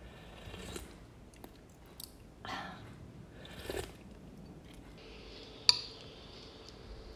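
Slurping hot soup broth off a metal spoon, three sips, then one sharp clink of the spoon against the ceramic bowl near the end.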